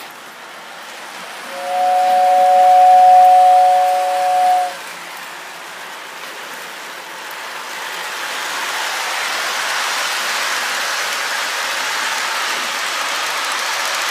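Lionel Hogwarts Express O-gauge model train's whistle sounding one held two-note chord for about three seconds. Then the steady rush of its wheels rolling on the track, growing louder as the passenger coaches pass close by.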